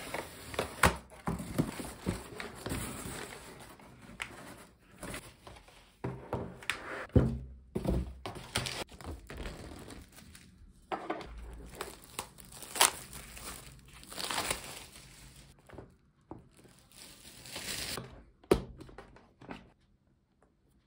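Unboxing handling noise: plastic wrapping and packaging crinkling and tearing, with sharp clicks and knocks from a white plastic gouache palette case being handled. The rustling stops shortly before the end.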